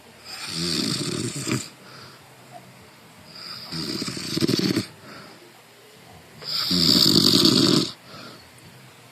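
A sleeper snoring: three long snores about three seconds apart, each lasting over a second, with quieter breathing between them.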